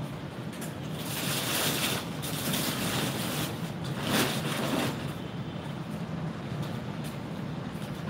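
A large plastic bag of dry cat food rustling in several bursts as it is gripped and lifted, over a steady low background hum.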